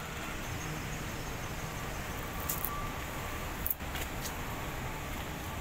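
Steady outdoor city ambience: a low hum of road traffic, with a few short sharp clicks, the loudest about three and a half seconds in.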